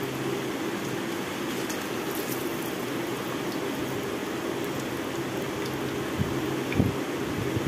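Hot oil sizzling steadily in a frying pan as a mango malpua fries and is lifted out with a slotted spoon, over a steady low hum. A couple of short knocks about six to seven seconds in.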